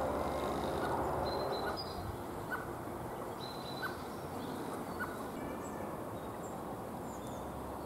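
Outdoor garden ambience with a steady background hiss, over which birds give a few short calls, three sharper ones about a second apart in the middle, and faint high chirps.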